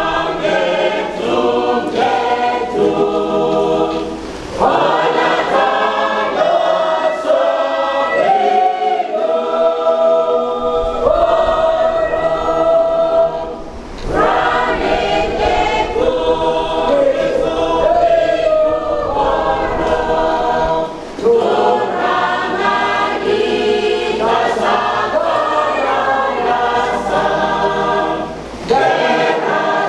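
Church choir singing, long sung phrases separated by short pauses about four times.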